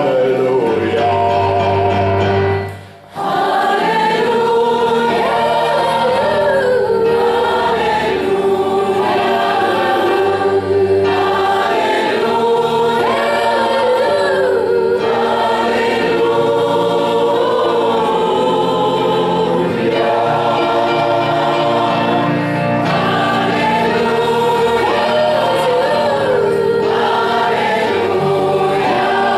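Choir singing a song in several-part harmony, with a brief break about three seconds in.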